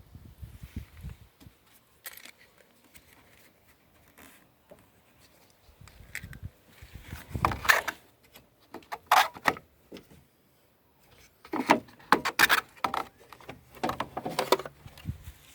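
Irregular handling noise: scattered clicks, rattles and knocks, loudest in clusters around the middle and near the end.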